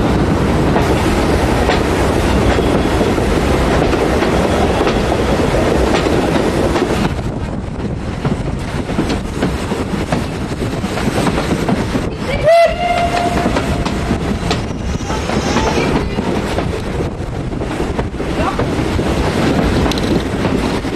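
A steam-hauled train running along the line, heard from a coach window: steady running noise of wheels on rails. About halfway through, the steam locomotive's whistle sounds once, briefly.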